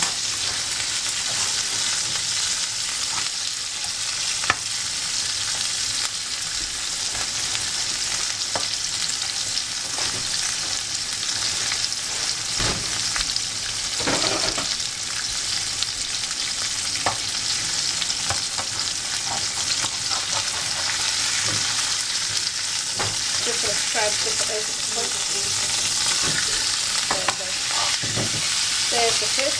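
Trout frying in hot oil in a pan: a steady sizzle, with a few sharp clicks and crackles now and then.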